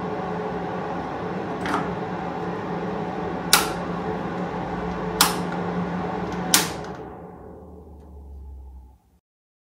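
Small ceramic fan heater running steadily while its rotary control knob is turned, clicking through its switch positions four times, the last three clicks loud. After the last click the fan is switched off and spins down, fading out over about two seconds.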